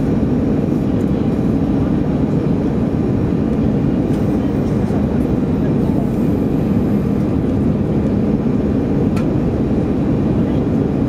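Steady engine and airflow noise heard inside the cabin of an Airbus A320 descending on approach.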